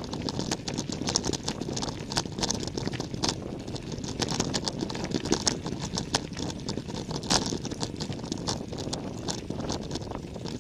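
Tyres rolling over loose gravel, with small stones crunching and clicking irregularly and constantly, and wind rumbling on the microphone.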